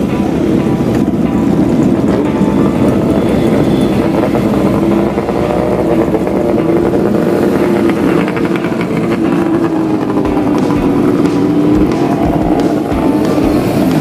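Engines of many old motorcycles running together as they ride past in a line, their pitches drifting up and down.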